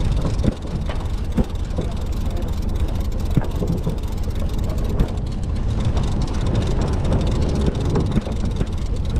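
Steady low rumble of a fishing boat's engine and wind on the deck, with a few light knocks and clicks from handling a baitcasting reel and rod.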